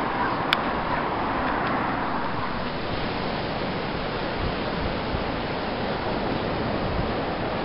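Steady rushing noise of sea surf and wind on the microphone, with one sharp click about half a second in.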